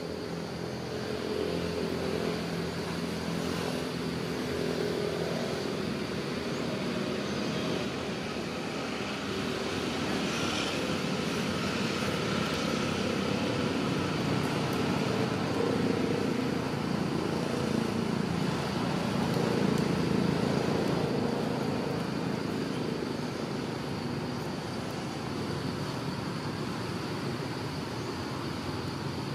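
Motor vehicle engine noise, swelling and easing slowly over several seconds.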